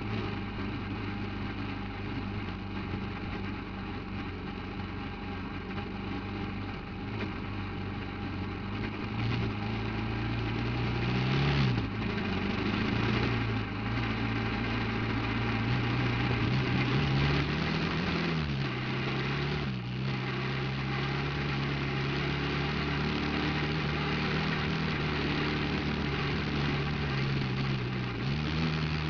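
Off-road buggy engine running at a fairly steady speed, its pitch briefly rising and falling a few times.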